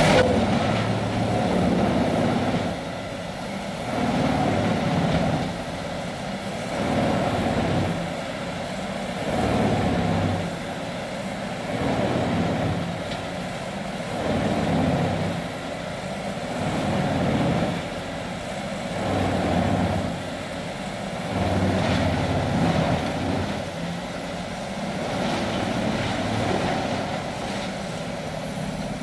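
Vermeer 6000-series wood grinder grinding ash logs and mixed hardwoods, its engine and grinding mill running under load. The sound swells and eases in a regular cycle about every two and a half seconds.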